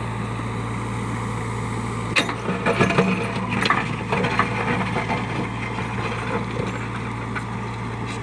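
JCB backhoe loader's diesel engine running steadily, with a burst of knocks and clanks starting about two seconds in and lasting a couple of seconds.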